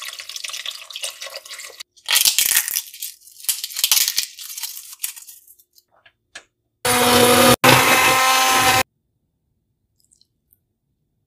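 Broth pouring into a slow cooker, then several loud crackling, clattering handling noises, then a stick blender's motor running steadily for about two seconds with a split-second break, after which it goes almost silent.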